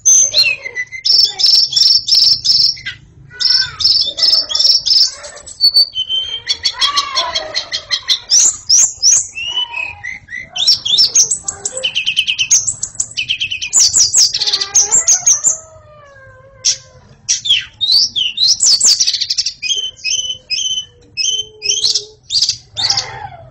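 White-rumped shama (murai batu) singing continuously in full voice: a fast, varied string of loud whistled phrases, rapid repeated notes and trills, with a brief pause about two-thirds of the way through.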